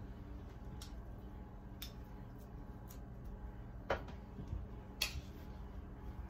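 Metal spoons clinking against each other and the mixing bowl as zucchini fritter batter is scooped up and scraped off: several light clicks, the two loudest about four and five seconds in, over a low steady hum.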